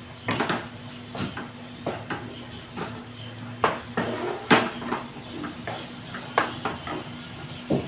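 Wooden spatula stirring cooked minced meat in a pan, scraping across the pan and knocking against it at irregular intervals, with a few sharper knocks.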